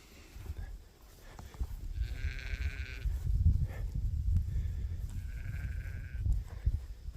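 Sheep bleating twice, each call about a second long, one about two seconds in and one near six seconds, over a low rumble.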